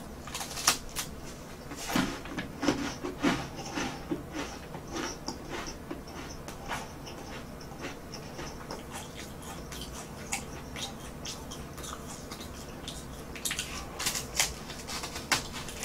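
Biting into and chewing crispy garlic bread: a run of crunches just after the first bite, softer chewing crackles, then another burst of crunches with a second bite near the end.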